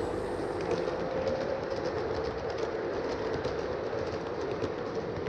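Large-scale garden-railway model train running on its track, heard from a camera riding on one of its cars: a steady rolling hum from motor, gears and wheels, with faint irregular clicks of wheels over the rail joints.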